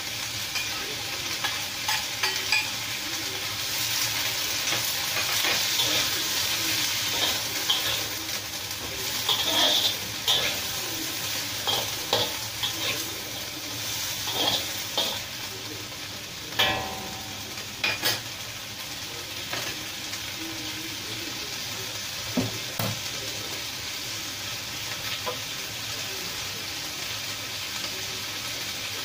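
Long beans sizzling in a black wok over a gas flame, with a metal spatula scraping and knocking against the wok as they are stirred. The stirring strikes stop a little past halfway, leaving steady sizzling.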